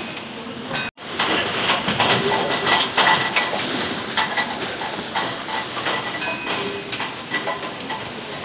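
Date-sorting conveyor line running, with a dense mechanical clatter of many small knocks and rattles. The sound cuts out for an instant about a second in.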